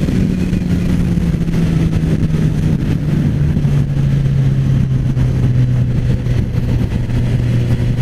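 Suzuki GSX-S1000's four-cylinder engine running at speed, its note falling steadily as the bike slows from around 128 to about 80 km/h, with wind rushing over the microphone.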